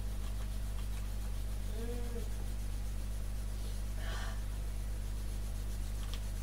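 Steady low hum, with a short soft vocal hum about two seconds in and a brief breathy rustle around four seconds.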